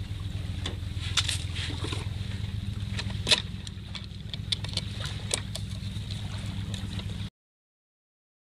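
Light metallic clicks and clinks as the carburetor is unscrewed and worked loose from a Yamaha 20 HP four-stroke outboard, the sharpest about three seconds in, over a steady low hum. The sound cuts off abruptly about seven seconds in.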